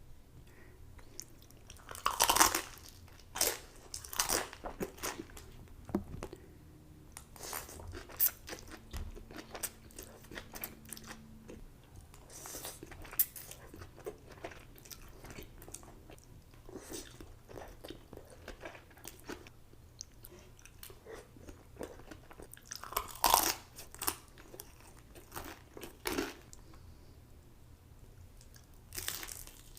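Close-miked eating: a person biting into and chewing crunchy food, with sharp crisp crunches and quieter chewing between them. The loudest crunches come about two to four seconds in and again a little past twenty seconds.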